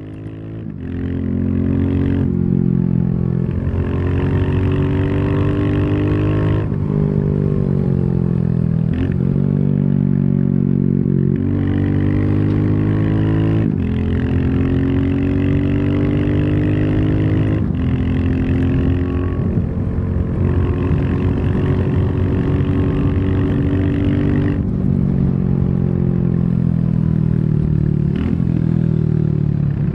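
Royal Enfield Classic 350's single-cylinder engine under way on the road, its pitch rising and falling with the throttle. There are several sharp breaks where the rider changes gear.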